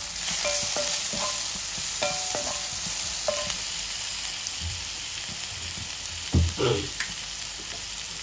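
Sliced onions, green capsicum and chillies sizzling in hot oil in a cast-iron skillet, stirred and scraped with a wooden spatula. A brief louder bump about six and a half seconds in.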